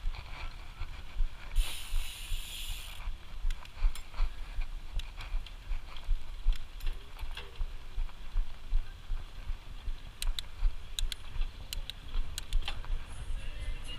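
Mountain bike being ridden: steady wind rumble on the microphone with scattered clicks and rattles from the bike, and a brief hiss about two seconds in.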